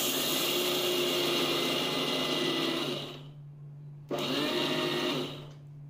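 Electric mixer grinder running in two bursts, first about three seconds, then about a second, grinding dry roasted peanuts in its steel jar. Each burst starts abruptly and winds down as the motor is switched off.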